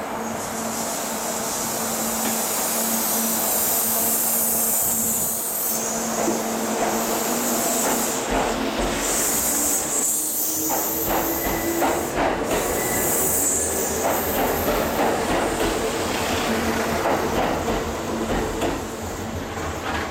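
Kintetsu limited express electric train pulling out and accelerating past: the traction motors give a whine that rises in pitch as it speeds up, and the wheels click over the rail joints as the cars go by. The sound fades as the last car clears.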